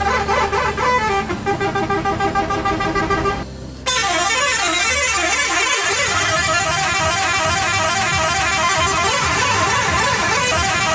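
Odong-odong mini train's telolet horn playing a tune of stepped notes. After a short break a little past three seconds in, a denser run of warbling, wavering horn tones follows.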